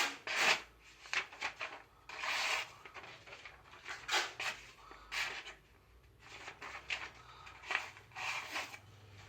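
A series of short, irregular scraping and rubbing strokes, about a dozen at uneven spacing, with no steady machine running underneath.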